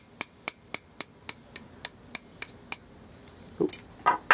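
Light hammer taps on a drill bit used as a punch to drive the retaining pin out of a sandblast gun. The taps are metal on metal at about four a second, then come slower and more irregular, with a few heavier knocks near the end.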